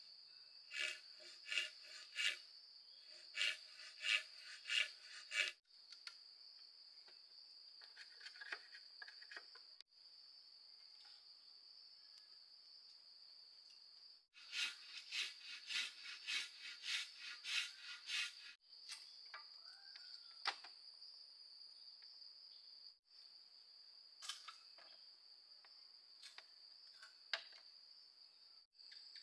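Steady high-pitched chirring of insects, broken off briefly several times, with two runs of rhythmic striking blows, about two a second with a slight ringing tone, near the start and in the middle, and a few single knocks later.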